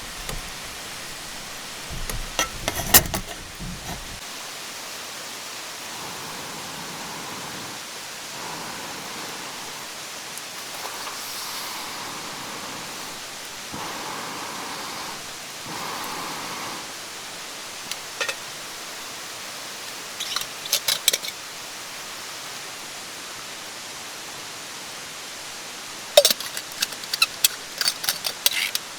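Steady rush of a mountain stream, with short clicks and knocks in clusters about two seconds in, around two-thirds through and near the end.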